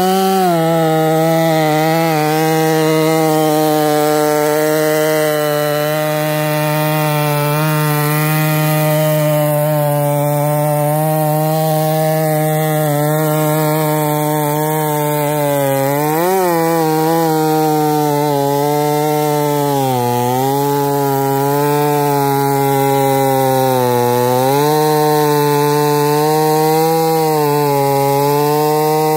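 Gas chainsaw running at high throttle while cutting into a tree trunk. Its engine pitch is steady but sags and recovers several times in the second half as the engine loads up in the wood, with a brief rise and fall about halfway through.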